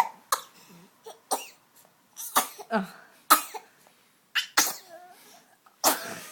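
A young child sneezing again and again: a string of about eight short, sudden sneezes with brief pauses between them.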